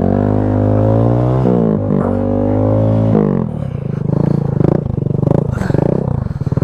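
Honda Grom's small single-cylinder engine revving hard under load on a steep, muddy climb. It holds high revs for about three seconds, dips briefly partway through, then drops into lower, uneven, choppy revs.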